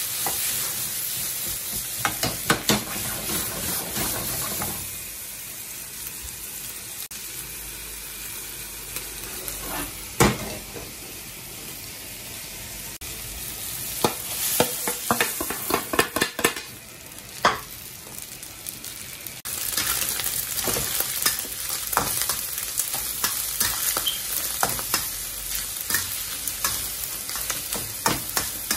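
Fried rice sizzling in a wok over a high gas flame while a metal spatula scrapes and clacks against the wok as it is stirred. A quick run of clacks about halfway through comes as pieces of wagyu beef are scraped from a frying pan into the wok. The sizzle grows louder for the last third.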